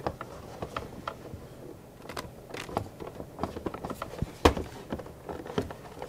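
Plastic clicks and knocks from the housing of a Hoover REACT vacuum's power head as its parts are pressed and worked back into place, with one louder knock about four and a half seconds in.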